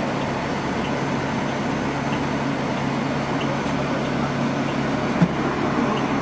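Steady low hum of a running engine, with one sharp knock about five seconds in.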